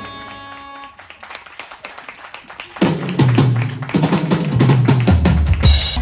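Rock drum kit played live after the drummer's introduction: a short quiet stretch of light hits, then from about three seconds in loud full-kit playing with kick drum and cymbals. A held chord fades out at the very start.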